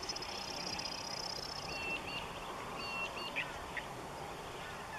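Large flock of wild budgerigars chattering over a waterhole, a dense mass of calls. A rapid high trill runs through the first second or two, and a few short clear whistled notes sound around two to three seconds in.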